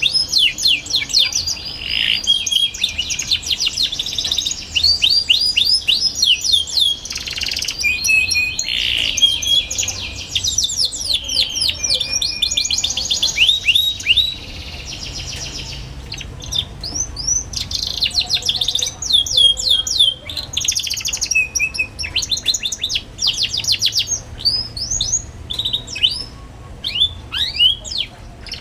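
Young domestic canary singing: long runs of fast trills and 'cuit cuit' chirps, with a short pause about halfway through before the song resumes.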